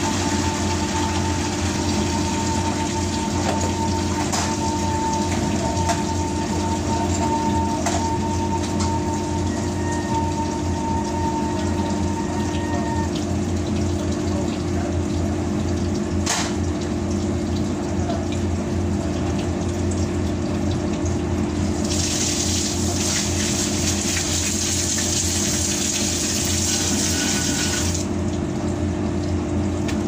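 Water running through a washing machine's inlet hose and fittings over a steady machinery hum, with a few light clicks. About 22 seconds in, a louder hiss starts; it cuts off suddenly some six seconds later.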